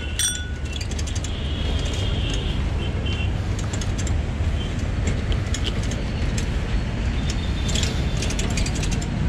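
A moving bicycle rattling and clicking, its wire basket and frame shaking over a paved path, with steady wind and tyre rumble on a handlebar-mounted camera. The bicycle bell rings once right at the start.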